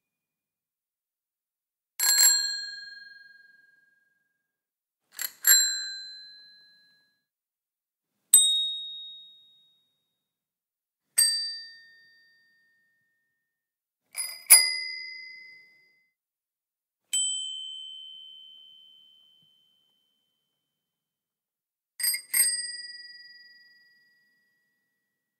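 A series of different bicycle bells rung one after another, about every three seconds, each ringing out and fading with its own pitch. Some are a single ding, while others give two quick strikes.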